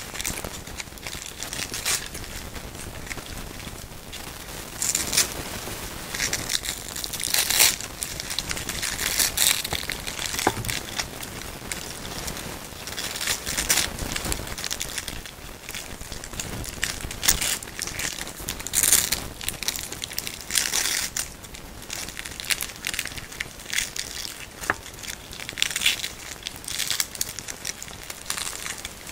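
Tangled hook-and-loop (Velcro) straps being crumpled and pulled in the hands: a continuous run of irregular scratchy ripping and crackling, with louder rips standing out every second or two.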